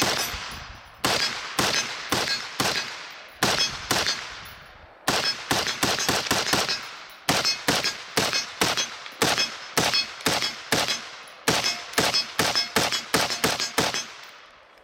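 Palmetto State Armory 20-inch A2-style AR-15 rifle firing .223 Remington, a long run of rapid semi-automatic shots about three a second, in several strings with short pauses between them, each shot trailing off in a decaying echo.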